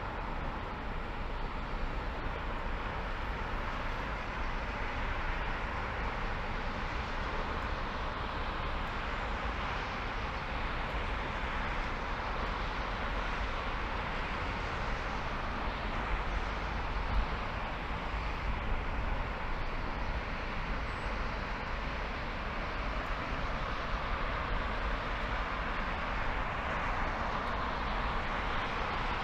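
Steady road noise from a car being driven: tyre and wind hiss over a deep, constant rumble.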